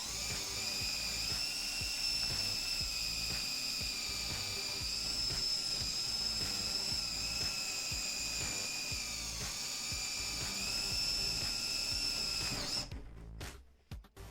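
Adedad cordless drill's motor running steadily at speed with a high whine, dipping slightly in pitch about nine seconds in and stopping about thirteen seconds in, over background music with a steady beat.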